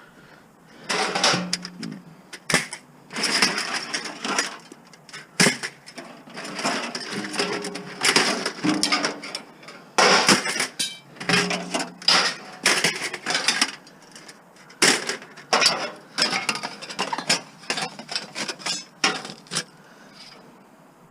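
Scrap metal being loaded by hand: an irregular run of clanks, bangs and scraping as pieces are dropped, thrown and dragged onto the pile. It starts about a second in and dies down near the end.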